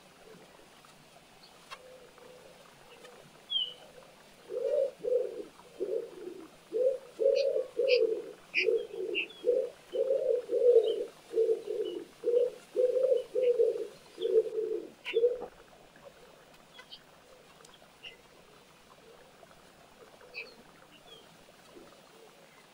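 A pigeon cooing: a long run of low, evenly spaced coos that starts about four seconds in and stops about fifteen seconds in. Faint high chirps of small birds are scattered throughout.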